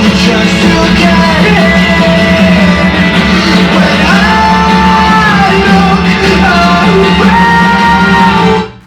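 Electronic pop song with a sung vocal melody, played loud on a boAt Stone Grenade 5 W Bluetooth speaker, stopping abruptly near the end.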